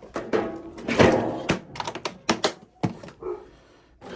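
A quick run of knocks and clatters of hard objects being handled, with a longer scraping sound about a second in.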